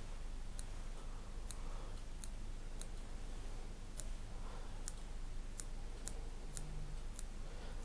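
Small curved fly-tying scissors snipping spun deer hair to shape a muddler head: about a dozen quiet, crisp snips, irregularly spaced, roughly one every half second.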